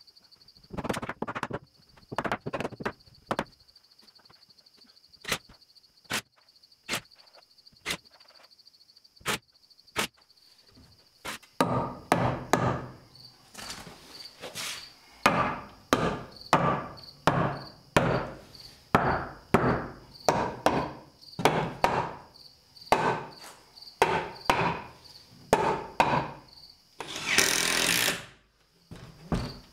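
Hammer driving nails into the wooden trim board at the foot of a plywood door: a few scattered taps, then steady blows about one a second from about eleven seconds in. Near the end comes a brief rasping burst of about a second and a half.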